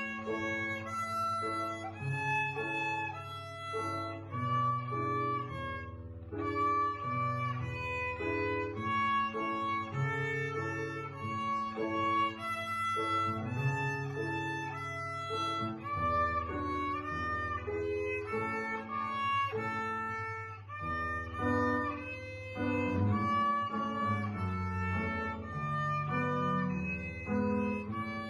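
Instrumental music: a bowed-string melody, violin-like, moving over chords and a held bass line.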